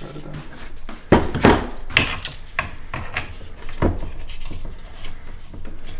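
Hard plastic parts of a cordless task light and its mount being handled and snapped apart by hand: a run of sharp clicks and knocks, the loudest a little over a second in and near four seconds, with rubbing between them.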